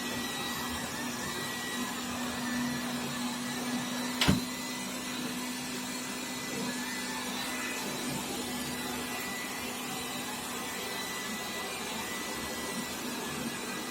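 Xiaomi Mi Robot Vacuum Cleaner 1S running, a steady whirring hum of its suction fan and brushes. There is one sharp click about four seconds in.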